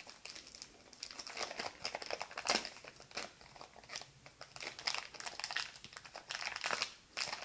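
Small clear plastic bag crinkling and crackling in the hands as it is opened to get at a coiled USB cable, in irregular bursts with a few louder crackles.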